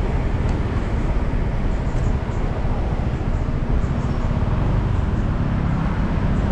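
Honda PCX 150 scooter on the move: its single-cylinder engine and road noise under a steady rumble of wind on the action camera's microphone.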